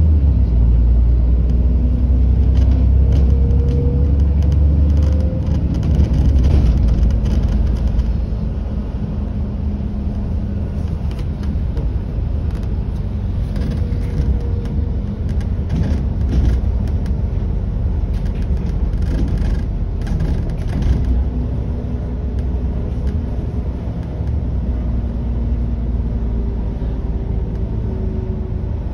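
Bus running, heard from inside the passenger cabin: a steady low engine and road rumble, heavier for the first eight seconds or so, with faint rising whines and scattered light rattles.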